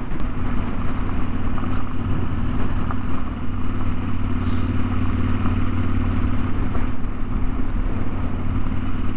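Yamaha Ténéré 700 motorcycle's parallel-twin engine running at a steady, low speed as the bike rides along, with no revving.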